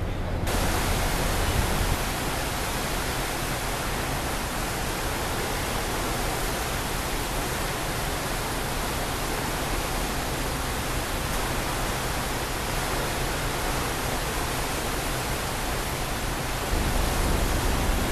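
Steady, even rushing hiss aboard a cruise ship under way, starting abruptly about half a second in.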